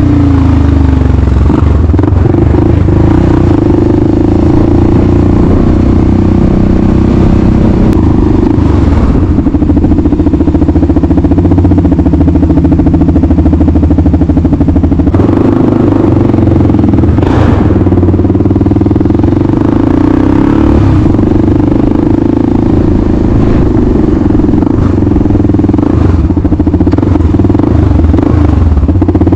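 Kawasaki KLR 650 single-cylinder four-stroke engine running loud and fairly steady while the motorcycle is ridden.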